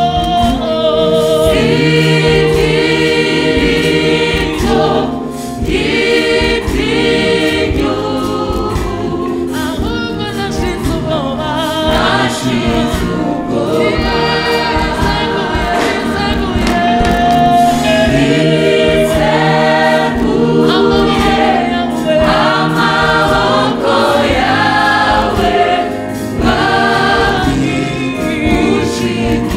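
Church choir singing gospel music in harmony, with sustained notes and a steady accompaniment underneath.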